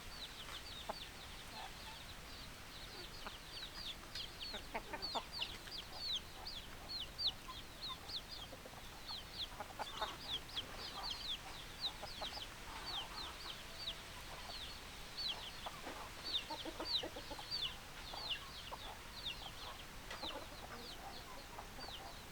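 Chickens calling: a steady stream of short, high, falling peeps, with lower clucks breaking in now and then.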